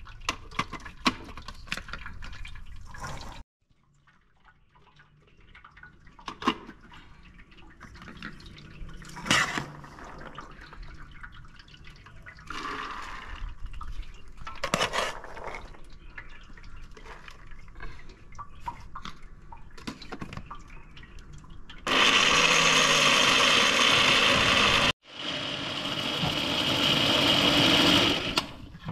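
Electric blender pulping pomegranate arils, run twice for about three seconds each with a short stop between. The second run builds up as it goes. Before the runs come scattered clicks and knocks of the jar and bowls being handled.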